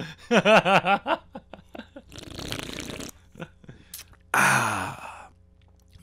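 A man's voice making sounds that are not words: a short run of voiced sounds, a breathy hiss, a few small clicks, then a loud breathy groan that falls in pitch.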